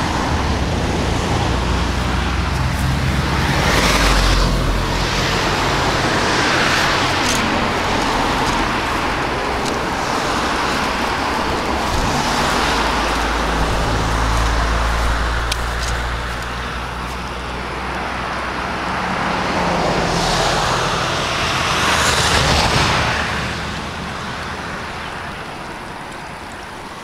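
Road traffic passing over a bridge: several cars go by one after another, each swelling and fading over a steady rushing background, growing quieter near the end.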